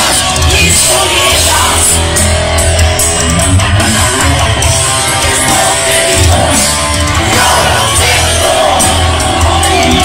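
Live rock band playing loud, electric guitar to the fore, heard from the crowd on a phone.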